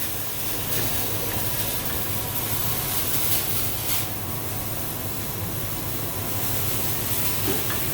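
Welding-shop background noise: a steady hiss with a low hum underneath and a few faint crackles.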